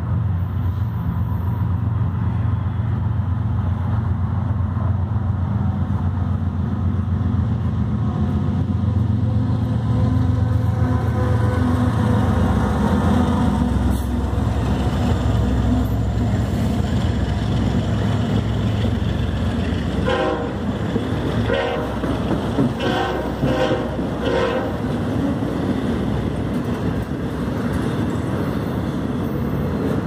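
A freight train passing close by, led by a GE ES44AC and an EMD SD70ACe diesel locomotive. Their horn dies away at the start, and the low diesel engine rumble swells to a peak about twelve seconds in. The autorack freight cars then roll past with steady wheel-on-rail noise, and a quick series of clatters comes about twenty seconds in.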